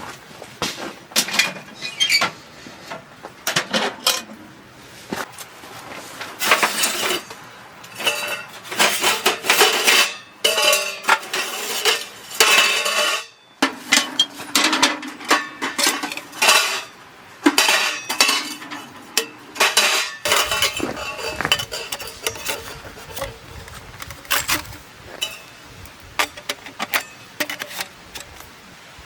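Metal items clinking and clanking as they are handled: many irregular knocks, some with a short ringing tone, busiest in the middle and thinning out toward the end.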